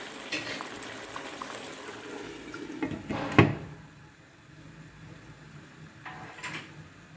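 Fish curry simmering and bubbling in an open pot. About three and a half seconds in, a glass lid is set on the pot with a sharp knock, after which the bubbling is muffled and quieter.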